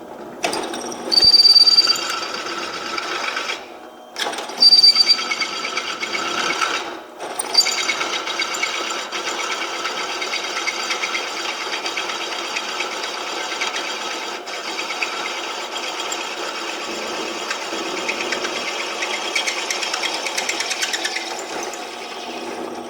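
Small drill press running, its bit cutting a 3/8-inch hole in flat bar, a gutless machine. The bit gives two short high squeals as it bites, with brief pauses between, then drills steadily.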